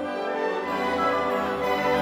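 Orchestral background music with sustained string and brass notes.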